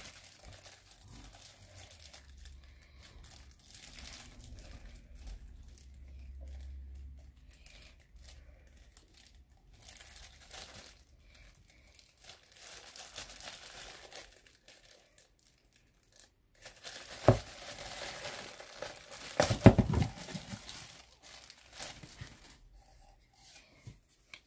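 Packaging crinkling and rustling as a small kitchen item is unwrapped by hand, in scattered bouts, loudest in a few sharp crackles and knocks about three-quarters of the way through.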